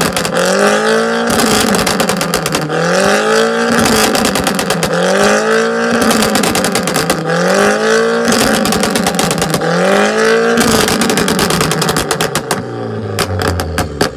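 Car engine revved repeatedly against a two-step launch limiter: its pitch rises and falls about every two seconds over rapid exhaust pops and crackles. Near the end it breaks into a burst of crackling and then drops to a low idle.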